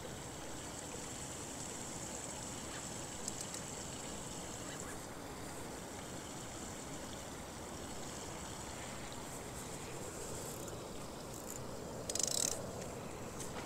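Quiet, steady outdoor ambience on the water with a faint trickle of water. A short scraping rub sounds near the end.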